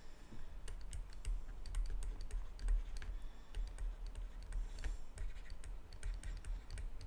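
A stylus tapping on a tablet or screen while digits are handwritten: a run of light, irregular clicks over a low rumble.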